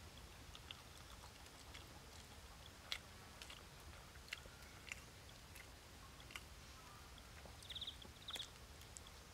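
Faint chewing and small clicks as a roasted egg is peeled and eaten, with two short high trills near the end.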